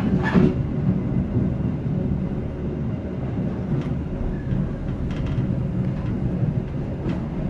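Train running along the track, heard from the rear of the train: a steady low rumble with a few sharp clicks from the wheels.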